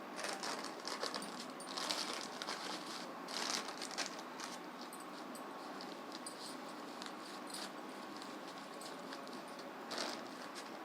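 Faint rustling and small clicks of hands handling hair-colouring supplies (bleach powder, developer, spoon and bowl), bunched in the first few seconds and once more near the end, over steady room hiss.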